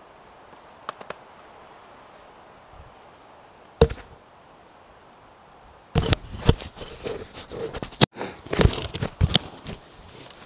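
Handling noise of an action camera being picked up and moved: a dense run of close clicks, knocks and rubbing starting about six seconds in. Before that there are a few faint clicks and one sharp click just before four seconds.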